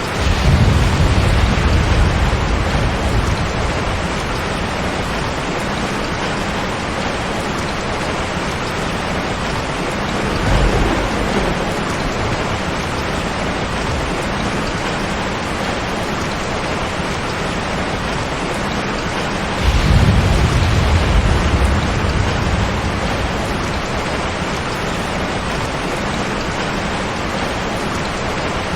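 Heavy rain falling steadily on a tin roof, with thunder rumbling low three times: at the start, about ten seconds in, and about twenty seconds in.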